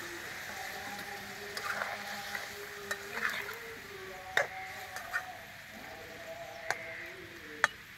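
Slotted steel spatula stirring and scraping prawn and ridge gourd curry in a steel kadai, the curry sizzling low underneath. Several sharp clinks of the spatula against the pan, the loudest about four and a half and seven and a half seconds in.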